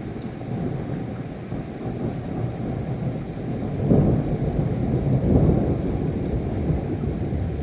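Thunder rumbling over rain, a deep roll that builds to its loudest about four seconds in and again about a second and a half later.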